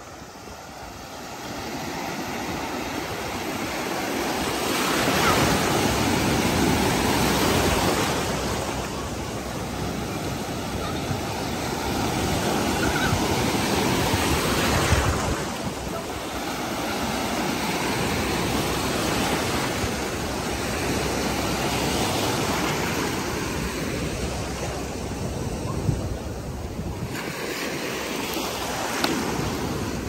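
Small surf waves breaking and washing through shallow water, the rushing noise swelling and easing every several seconds as each wave comes in.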